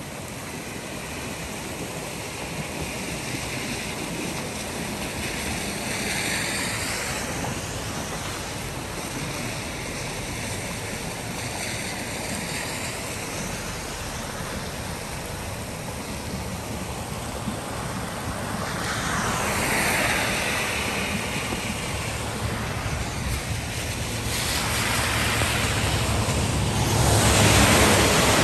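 Loud, steady rushing of flash-flood water mixed with wind noise on the microphone, swelling louder three times, most strongly near the end.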